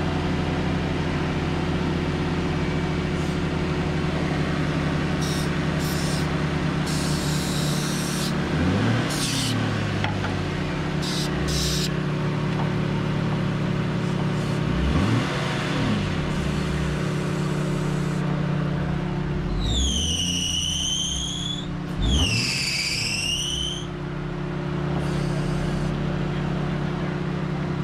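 Nissan 350Z's 3.5-litre V6 idling steadily with the A/C running while it is recharged with R134a, its pitch dipping and recovering several times. There are short bursts of hiss in the first half and two short high squeals about two-thirds of the way through.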